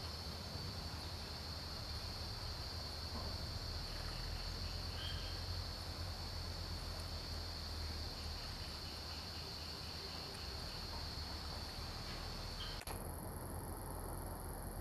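Steady high-pitched drone of insects, with a low hum underneath. About thirteen seconds in it cuts off sharply and a thinner, higher insect whine takes over.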